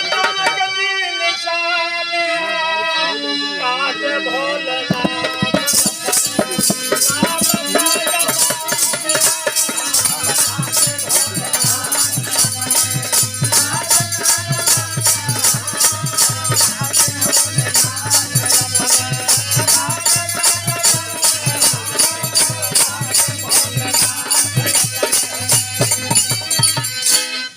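Bhojpuri folk music accompaniment: a melody of held tones, then from about six seconds in a fast, steady jingling percussion beat joins with regular drum strokes under it. It cuts off suddenly at the end.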